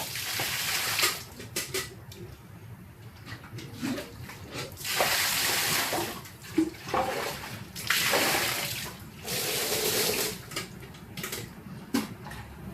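Tap water running in several gushes of a second or two onto fridge trays and racks being rinsed in a sink, with short knocks from the parts being handled between the gushes.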